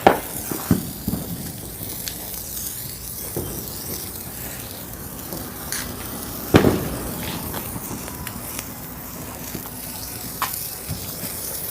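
A burning firework hissing and sputtering steadily, with scattered crackles and one sharp pop about six and a half seconds in.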